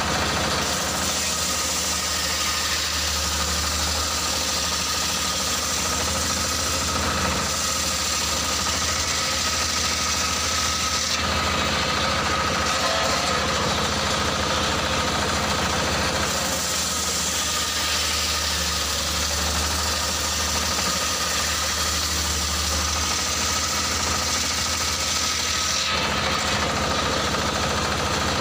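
Stationary engine running steadily, driving a large circular saw blade that rips lengthwise through a log, the cutting hiss strengthening and easing as the log is fed through in passes.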